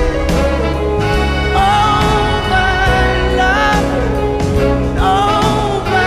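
Background music: a song with a steady beat, bass, and a wavering lead melody line without sung words.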